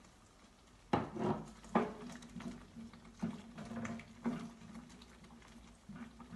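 Wooden spatula knocking and scraping against a metal cooking pot as carrot chunks are stirred into a thick beef stew, with a series of sharp knocks, the loudest about a second in and again just before two seconds.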